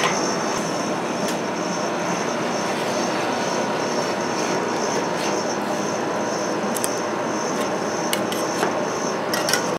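Steady whir of a rolled-ice-cream cold-plate machine's refrigeration unit running, with now and then the short scrape and click of steel spatulas on the frozen steel pan as ice cream is pushed into rolls, the clicks coming more often near the end.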